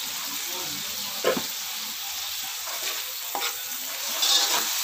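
Pork liver sizzling in hot oil in a wok, just splashed with soy sauce, while a spatula stirs and scrapes the pan. The sizzle holds steady under a few short spatula scrapes and grows louder near the end.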